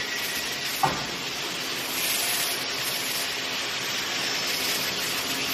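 Automatic fan guard grill looping and welding machine running with a steady hiss, and one sharp clack just under a second in.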